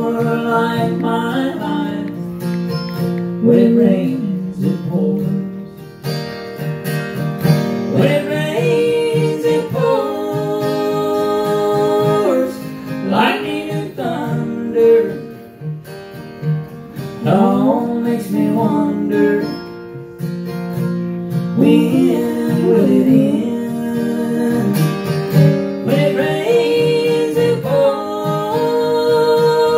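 Country song played live: an acoustic guitar strummed in a steady rhythm, with singing carrying the melody over it in long, wavering held notes.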